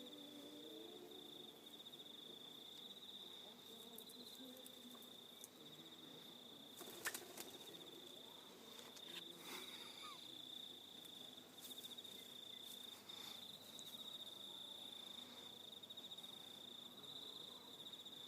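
Faint, steady high-pitched insect trill running without a break, with a few sharp clicks, the loudest about seven seconds in.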